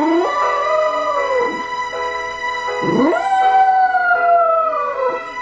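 Cocker spaniel howling along to television theme music: two long howls, each rising, holding, then sliding down in pitch, the second starting about three seconds in.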